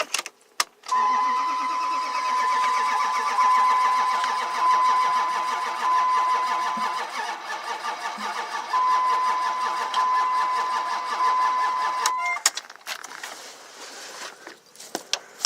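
The 2003 Dodge Ram's 5.9 Magnum V8 cranking over on the starter for about eleven seconds with a fast, even chug and a steady high whine, never catching, then cutting off abruptly: a crank-no-start with no ignition spark.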